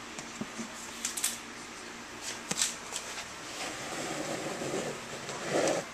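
Plastic snake-rack tubs being handled: a few scattered clicks and knocks, then a longer scrape of a tub sliding along its shelf from about three and a half seconds in, and a louder rustle near the end. A faint steady hum sits underneath.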